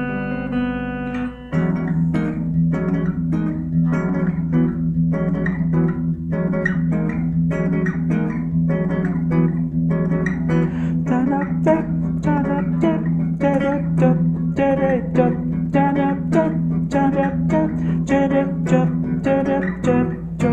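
Acoustic guitar played through effects pedals: a held chord rings for the first second and a half, then a quick, even run of picked notes continues over a sustained low bass note.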